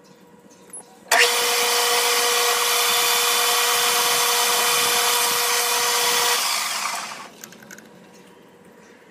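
Small metal lathe switched on with a click, running with a loud steady whine for about five seconds while turning aluminium round stock, then switched off and winding down.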